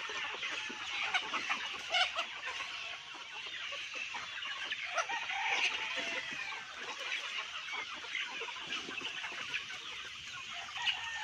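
A large flock of young chickens feeding, with many birds clucking and peeping over one another in a continuous chatter, and a few sharp taps.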